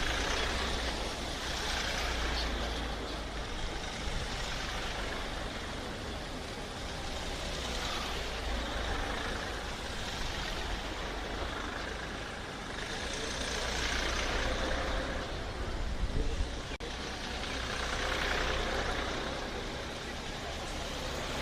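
A convoy of Mahindra Bolero SUVs driving past one after another, engine and tyre noise swelling and fading as each vehicle passes, a few seconds apart, over a steady low rumble.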